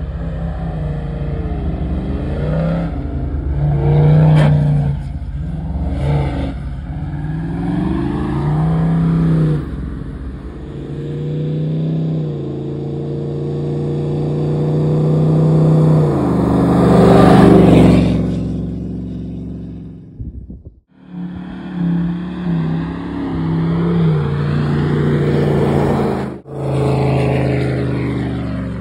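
Toyota Land Cruiser 79 Series with a ZF 8-speed automatic, its engine working hard and revving through soft dune sand, the note rising and falling with throttle and shifts. It is loudest as it climbs a little past the middle, and it breaks off briefly twice later on.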